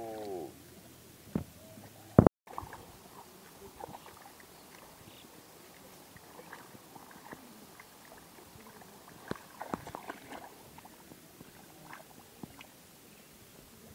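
Hands groping and sloshing in shallow muddy water, giving scattered small splashes and squelches that bunch together around the middle. A loud sharp click about two seconds in is followed by a moment of dead silence.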